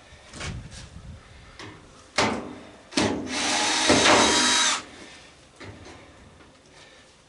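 Cordless power drill/driver backing out a screw from the stove's sheet metal: one loud run of about a second and a half, after a few clicks and knocks of the tool being handled.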